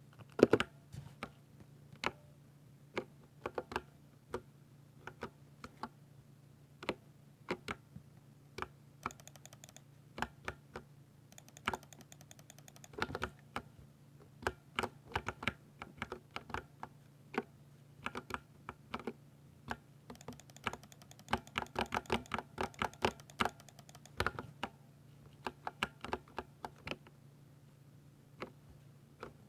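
Typing on a 60% mechanical keyboard with Ducky silver (Cherry MX Speed Silver, linear) switches: irregular keystrokes with quicker runs of typing near the middle and about two-thirds through, over a faint steady hum.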